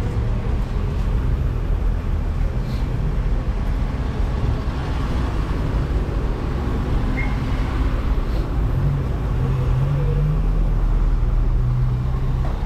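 Street traffic: a motor vehicle's engine running close by over steady road noise, its pitch rising about nine seconds in.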